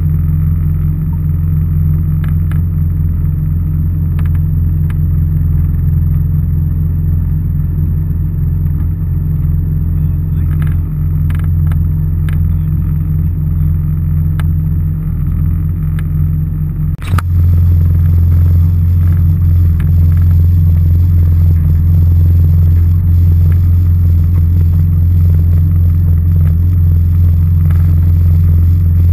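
Jet ski engine idling with a steady low drone. About two-thirds of the way through, the sound changes abruptly and runs on a little louder.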